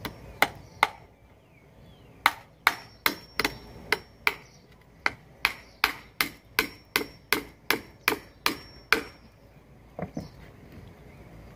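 Hammer driving a nail into a wooden board: about twenty sharp strikes at roughly two to three a second, in three runs with short pauses between, and two lighter taps near the end.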